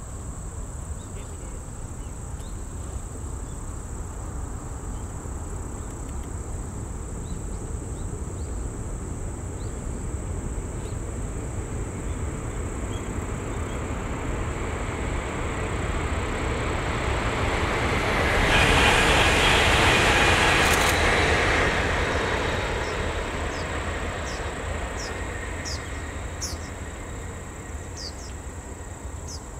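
A Shinkansen bullet train passing at speed on the viaduct: a rushing rail and air noise that builds over several seconds, is loudest about two-thirds of the way in, then fades away. A steady high insect buzz sits underneath, with short insect chirps near the end.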